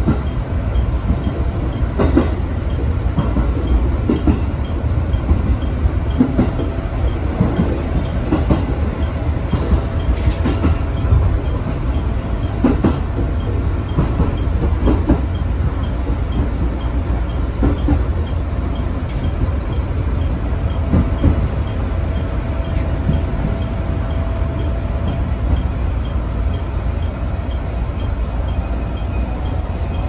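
Electric commuter train running, heard from inside the driver's cab: a steady low rumble with irregular wheel knocks over rail joints every couple of seconds, and a faint steady whine for several seconds in the second half.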